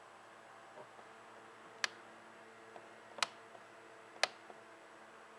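Sharp single clicks at irregular spacing, three loud ones about a second apart with a few fainter ticks between, over a faint steady electrical hum.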